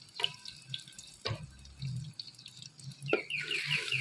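Raw chicken pieces dropped by hand into ghee in a clay cooking pot: soft wet plops and drips with a few sharper knocks, the sharpest about three seconds in, followed by a quick run of short squeaks as a spoon moves in the pot.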